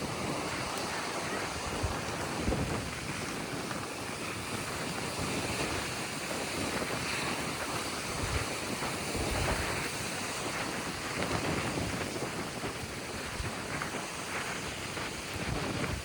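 Mediterranean waves breaking and washing on the beach in a steady surf, with wind buffeting the microphone in low bumps now and then.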